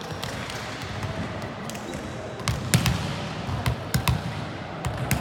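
Volleyballs being hit and bouncing on a hard indoor court: a string of sharp smacks and thuds, the loudest about halfway in, over a steady background hubbub.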